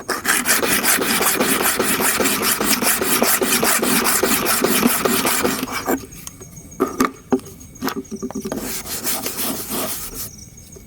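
Rapid back-and-forth rubbing across a diamond sharpening stone's surface, a dense rasping stroke after stroke for about six seconds, then a few knocks and a shorter burst of rubbing near the end.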